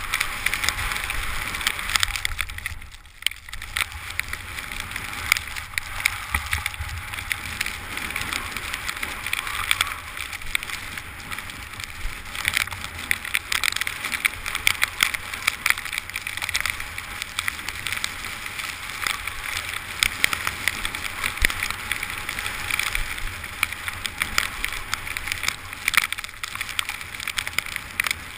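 Skis sliding over snow in a steady hiss, with wind rumbling on the microphone and frequent small clicks and knocks. The hiss briefly drops away about three seconds in.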